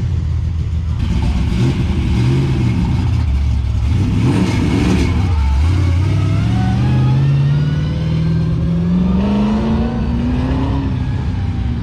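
A hot-rodded car engine revving in short blips, then accelerating hard in one long pull, its pitch rising steadily for several seconds.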